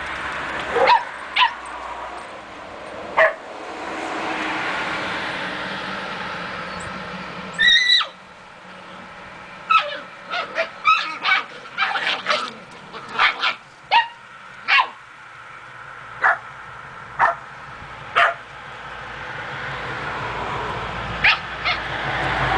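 Eight-week-old Samoyed puppies yipping and barking in play: a string of short, high-pitched yips, bunched thickly in the middle, with one longer drawn-out yelp about eight seconds in.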